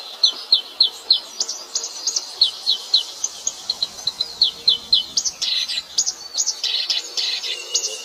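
Small songbirds chirping: rapid series of short, high-pitched notes, several a second, that grow denser and overlap from about five seconds in.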